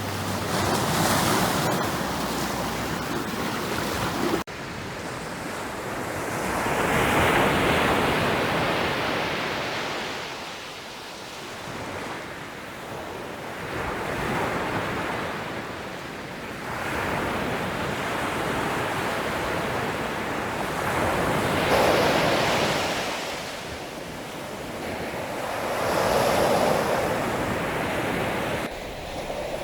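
Ocean surf: waves breaking and washing in, swelling and falling away every several seconds. An abrupt cut about four seconds in is where the sound was edited.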